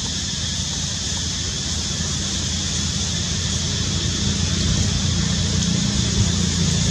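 Steady low rumble that grows gradually louder, under a constant high-pitched hiss.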